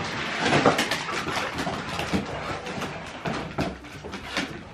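Siberian huskies scrambling over a fabric couch and wooden floorboards: a quick, uneven jumble of thumps, knocks and scrabbling paws.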